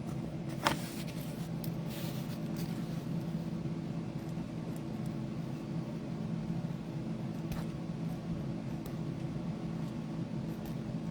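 Steady low electrical or fan-like hum, with a sharp click about a second in and a few fainter clicks later.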